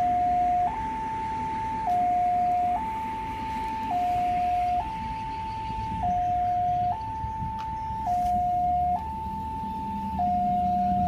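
Railway level-crossing warning alarm sounding an electronic two-tone hi-lo, switching between a lower and a higher pitch about once a second, signalling that a train is approaching the closed crossing. A low drone grows beneath it in the second half.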